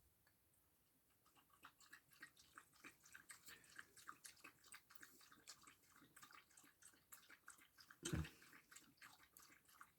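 Near silence with faint, scattered small clicks and one soft, slightly louder knock about eight seconds in.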